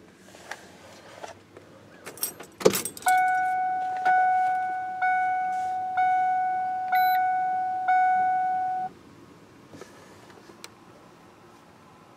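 Keys jangling and a sharp click as the ignition key of a 1995 Ford F-150 is turned on. Then the truck's warning chime dings six times, about once a second, each ding fading out, before it stops.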